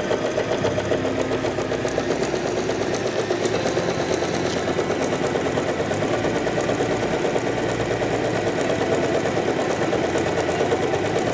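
USHA Janome Allure DLX electric sewing machine running steadily under the foot pedal, its needle going in a fast, even rhythm as it sews a decorative zigzag stitch pattern.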